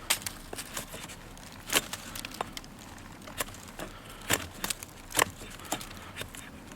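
The blade of a hand-held KLAX hatchet head cutting into green wood in short strokes: irregular sharp clicks and cracks, four of them louder than the rest.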